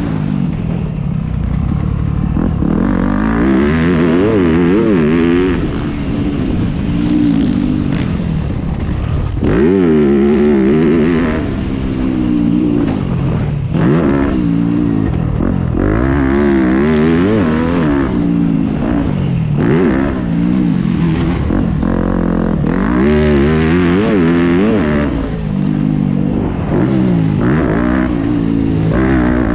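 Motocross bike engine heard from on board, revving up and falling back again and again, with sudden drops in pitch as the throttle is closed or a gear is changed.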